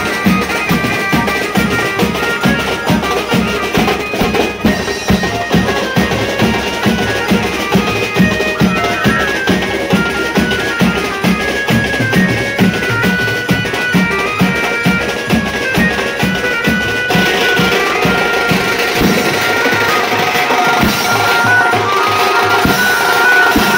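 Live street band playing dance music: drums and cymbals keep a fast, steady beat while a high melody line runs over it, amplified through horn loudspeakers. The sound grows brighter about seventeen seconds in.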